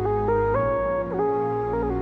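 Instrumental passage of a gospel song: a flute-like melody stepping and sliding between notes over held bass notes.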